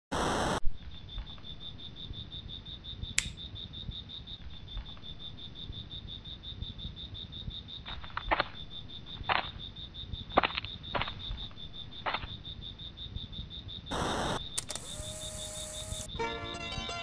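Crickets chirping in a steady, evenly pulsing high trill, with a few soft clicks in the middle. Near the end, a short rush of noise comes in and then music begins.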